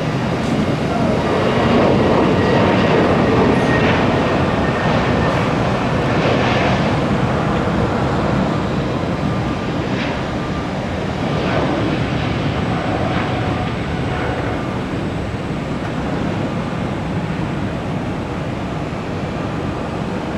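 Jet airliner engines running, a steady noise that is loudest a few seconds in and slowly eases off.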